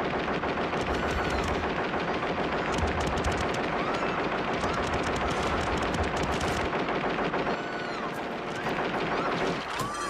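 ED-209 enforcement robot's arm-mounted guns firing long continuous bursts of rapid automatic fire, a film sound effect, with a few short rising-and-falling whines heard over the shots.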